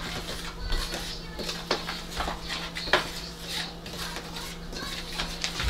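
A spoon clinking and scraping against a dish while seasoned flour for a fried-chicken coating is mixed: an irregular run of light clicks and scrapes, with one sharper knock about three seconds in.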